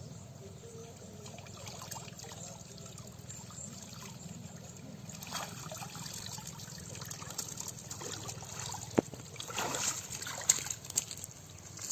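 Water trickling and splashing, with a louder stretch of splashing near the end and a single sharp knock just before it.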